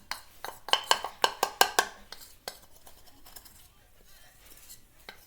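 A spoon clinking and scraping against a bowl of warmed cornstarch: a quick run of sharp clicks over the first two seconds and one more a little later, then quiet handling.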